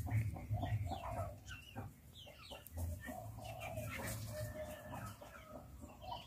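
Chickens clucking, fairly faint, with short higher bird chirps among them.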